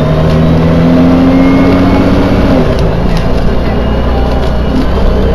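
Cummins LTA10 turbodiesel of a Dennis Dragon double-decker bus, heard from on board while it drives, pulling with a steady drone that drops in pitch about two and a half seconds in.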